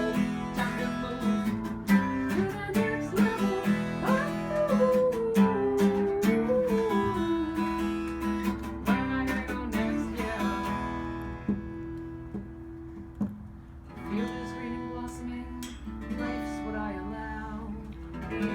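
Acoustic guitar strummed in an instrumental break of a song, the strumming giving way to lighter, sparser notes about ten seconds in before building again near the end.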